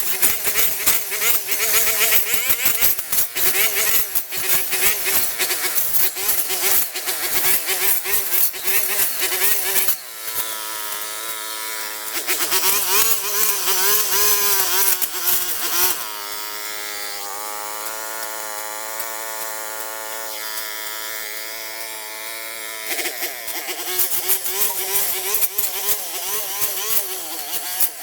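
A small engine running at high revs with a loud, buzzing whine whose pitch wavers. It gets rougher and rattlier in the first ten seconds and near the end, and is smoother and steadier in between.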